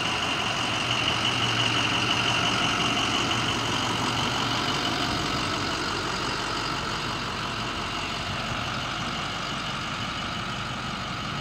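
2008 International MXT's 6.0-litre VT365 turbo-diesel V8 idling steadily, growing slightly quieter toward the end.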